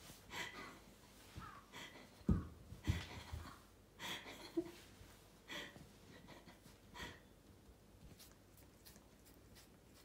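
Faint, scattered rustles and soft thumps of a cat rolling and rubbing on a wooden floor, with the duller thumps a little over two seconds in and near three seconds; it grows quieter after about seven seconds.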